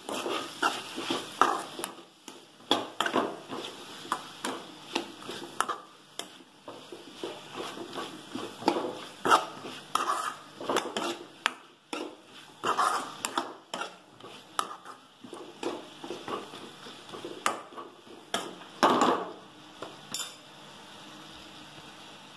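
Steel spatula scraping and clinking against a steel kadai while stirring cubed bottle gourd in masala: irregular strokes, one or two a second, that stop about two seconds before the end.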